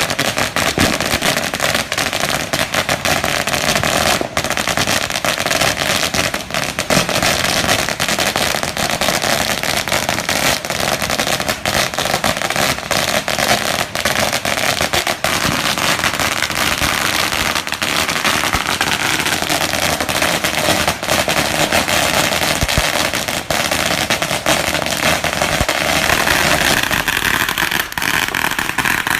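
A 16,000-cracker firecracker string burning through, setting off a dense, continuous stream of rapid sharp bangs with no break.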